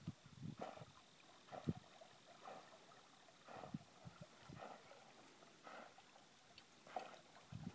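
Faint, irregular short sounds, a second or so apart, of a retriever swimming back across the water on a water retrieve.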